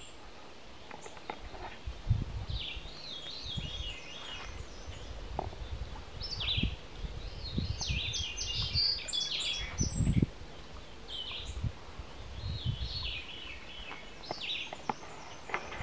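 Songbirds singing in the woods: repeated short phrases of high chirping notes. Low rumbling bumps on the microphone break in now and then, the loudest about two seconds in and again about ten seconds in.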